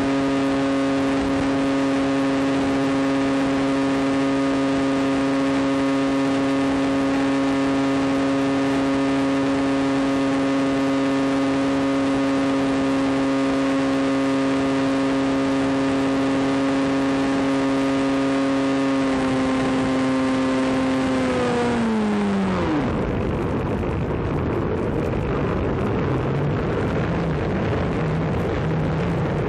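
Electric motor and propeller of a Maxi Swift flying wing running at steady cruise throttle, a steady hum heard from on board. About three-quarters of the way through the throttle is cut: the pitch drops away quickly and the motor falls silent, leaving wind rushing over the airframe as it glides.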